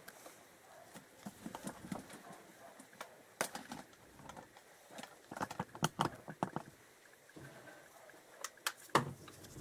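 Scattered light clicks and knocks of metal tools and engine parts being handled on a dismantled motorcycle crankcase, with a few sharper knocks in the middle and just before the end.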